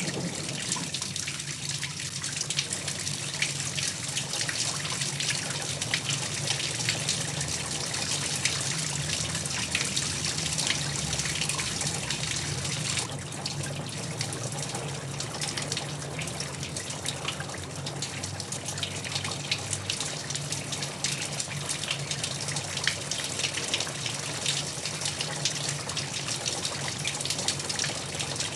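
Heavy rain falling steadily, a dense hiss with fine patter, over a low steady hum.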